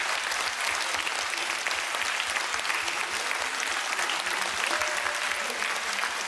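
Dense, steady applause from an audience and performers clapping together.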